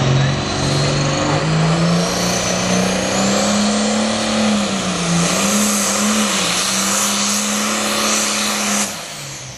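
Super farm pulling tractor's engine at full throttle under load, its pitch climbing over the first two seconds with a high whine rising alongside, then holding with brief dips. About nine seconds in the engine note drops away sharply as the driver backs off the throttle, something not feeling right to him.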